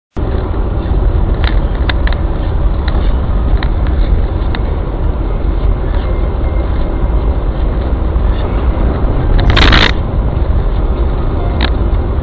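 Steady road and engine noise heard inside a moving car's cabin, with a few light clicks and a brief, louder rush of noise near the end.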